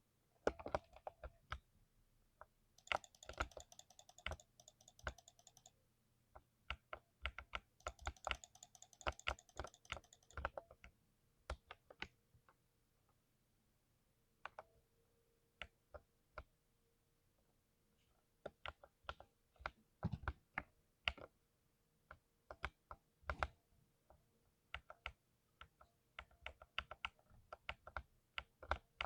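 Mechanical keyboard being typed on: separate key clicks throughout, with two stretches of rapid, evenly repeated keystrokes in the first ten seconds, then slower, scattered typing.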